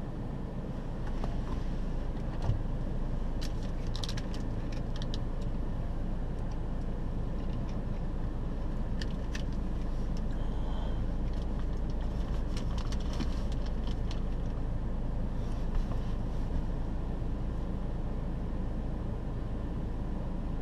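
Vehicle engine idling with a steady low rumble, with scattered light clicks and rattles a few seconds in and again between about nine and fourteen seconds.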